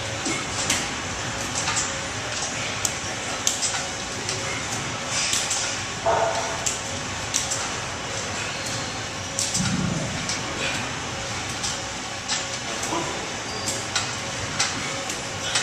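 Medicine ball slapping into hands and thudding during rotational throws: irregular sharp slaps and knocks, a few each second at times, over a steady hiss of gym noise, with a duller thud about ten seconds in.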